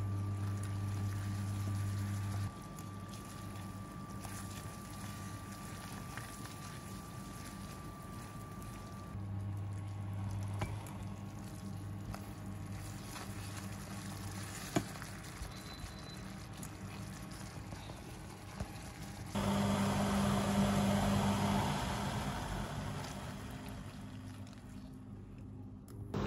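Cream sauce bubbling and spattering in a nonstick frying pan while a silicone spatula stirs and scrapes it, over a low electric hum that cuts in and out. A sharp click about fifteen seconds in, and the bubbling grows louder from about nineteen seconds.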